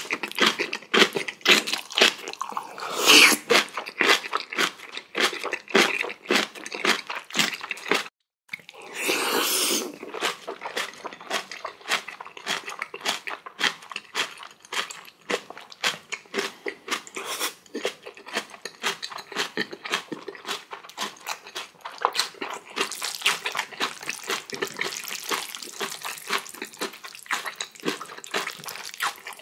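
Close-miked mukbang eating: a large mouthful of black-bean sauce noodles (jajangmyeon) and crunchy cabbage kimchi chewed rapidly, with a dense, irregular run of wet chewing and crunching.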